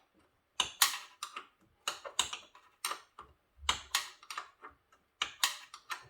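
Ratchet wrench clicking in short bursts of sharp clicks as a scooter's rear brake caliper bolt is wound in.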